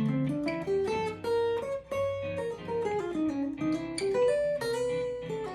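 Guitar playing quick single-note pentatonic lines over a recorded ii–V–I chord backing (D minor, G7, C major seven). The lines superimpose minor pentatonic scales on the chords, starting with A minor pentatonic over D minor.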